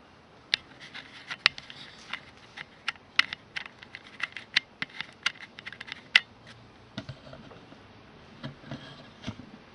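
An irregular run of short, sharp clicks, about three a second, then a few duller knocks near the end.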